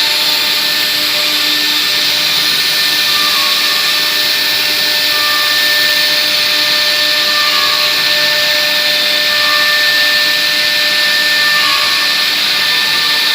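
Wood CNC router spindle running with a steady high whine over a dense hiss, as it carves wood on a 4-axis machine.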